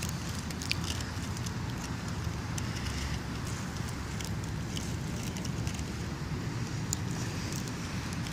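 A steady low rumble of outdoor background noise, with a few faint, scattered crackles of dry fallen leaves under a baby's bare feet.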